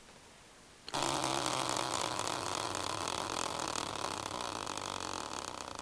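Tabletop prize wheel spun by hand, its pointer ticking very rapidly against the pegs, a fast clatter that starts suddenly about a second in. The ticks begin to slow and space out near the end as the wheel loses speed.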